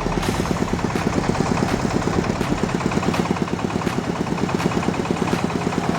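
Engine of a mobile rice mill (mesin penggiling padi) running with a steady, rapid chugging, about seven beats a second.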